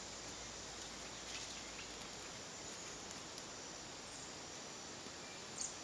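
Small dry-grass and kindling fire burning faintly: a steady hiss with a few soft crackles scattered through it, one a little louder near the end.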